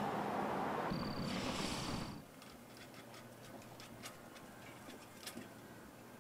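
Outdoor background noise with a brief thin high tone about a second in. It cuts to a much quieter space holding a few scattered light ticks and clicks.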